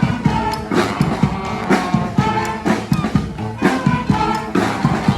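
Street brass band playing a New Orleans-style brass-band tune: horns over a steady drum beat.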